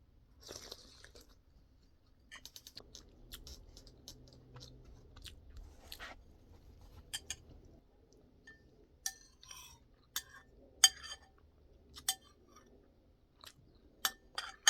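Close-up chewing and mouth sounds of someone eating, with scattered sharp clicks and smacks that come thicker in the second half.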